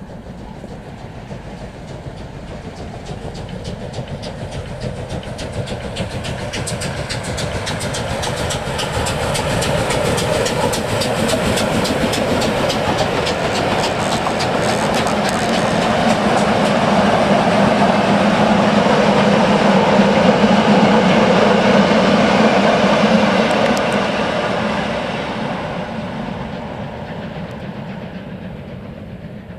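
Steam locomotive hauling a train of vintage passenger coaches passes by. A rapid beat builds as the engine approaches, then the coaches' wheels rumble past loudly and fade away near the end.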